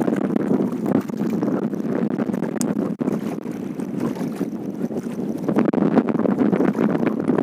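Strong wind buffeting the microphone, heard as a steady, gusty rushing noise.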